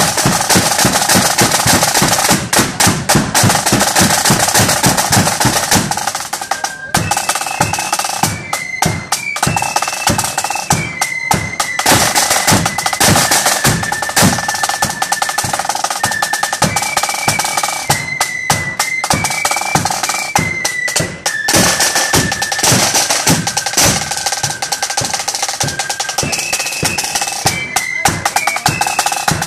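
Marching flute band: several snare drums and a bass drum beating a fast march. About six seconds in, flutes join with a high melody in unison.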